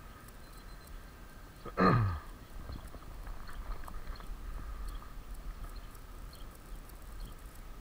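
Hooked bass splashing at the water's surface as it is reeled in to the bank. About two seconds in, a short loud sound drops quickly in pitch.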